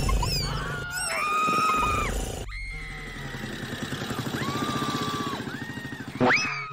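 High-pitched scream-like cries, each rising, holding a steady pitch, then dropping, over a motorcycle engine running with a rapid, even low pulse from about two and a half seconds in.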